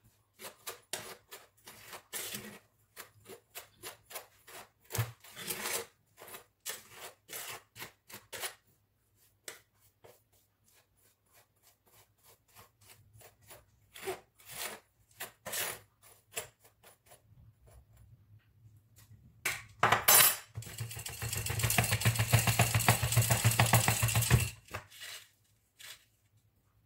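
A spoon taps and scrapes against a bowl in irregular clicks as dry flour mixture is stirred. About twenty seconds in, a sieve of flour is shaken rapidly for about four seconds, a dense rattling hiss as the flour sifts through.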